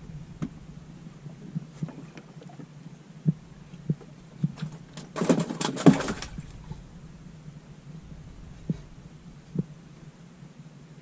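Scattered dull knocks and thumps in a small open fishing boat, with a short burst of clattering and rustling about five seconds in.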